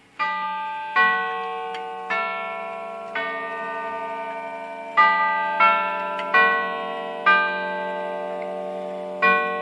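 Herschede Model 250 grandfather clock's tubular chime tubes playing a chime melody: two phrases of four struck notes with a short pause between them, each tone ringing on under the next, and a third phrase beginning near the end.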